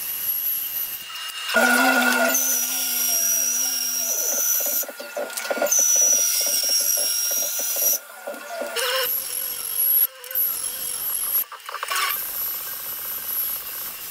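Bandsaw resawing a walnut board on edge: the motor and blade run with a steady high whine while the blade cuts through the wood. The sound changes abruptly several times.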